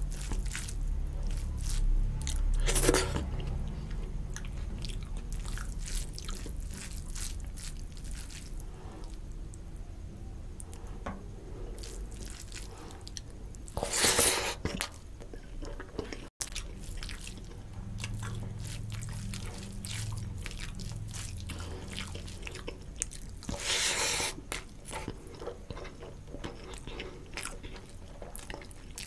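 Close-miked mouth sounds of a person eating rice and fish curry by hand: chewing, with wet squishing as the fingers mix and scoop the rice. Three louder bursts of mouth noise stand out as handfuls go into the mouth.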